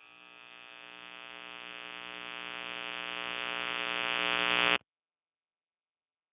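A steady, buzzing electronic drone for an animated logo, swelling steadily louder for nearly five seconds and then cutting off abruptly.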